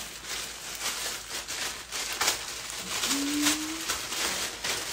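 White plastic mailer bag crinkling and rustling as it is handled and pulled open, in a rapid run of crackles, with a short rising hum a little after three seconds in.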